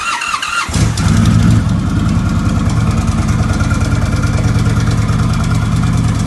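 Indian Roadmaster's stock 111 cubic-inch V-twin, fitted with a stage 1 exhaust and fishtail tips, started on the electric starter: a short crank whine, then the engine catches under a second in and settles into a steady idle.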